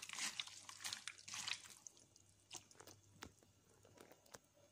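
Hands squishing and kneading raw chicken pieces in a soy-sauce marinade in a bowl: wet squelching for the first couple of seconds, then a few faint ticks.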